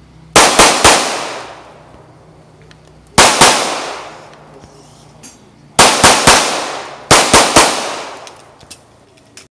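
Live-fire gunshots in four quick strings of two or three shots, about four shots a second, each string echoing away over roughly a second.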